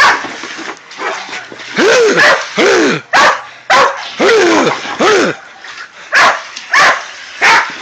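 A dog barking over and over: about nine loud barks in runs, several arching up and down in pitch like yelps.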